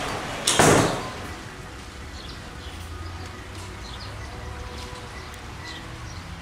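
A loud half-second rush of noise about half a second in, then a low steady background with faint scattered chirps.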